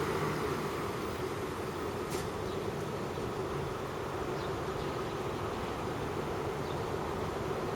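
Road traffic on a busy city street: a vehicle passes and fades away at the start, then a steady hum of engines.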